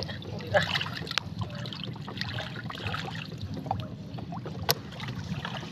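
Seawater trickling and sloshing as a wet fishing net is handled by hand in shallow water, with scattered small clicks and one sharp click about four and a half seconds in, over a low steady hum.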